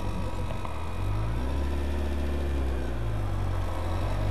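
Honda Fireblade's inline-four engine under way. Its note climbs about a second in, holds, then dips briefly around three seconds in and climbs again.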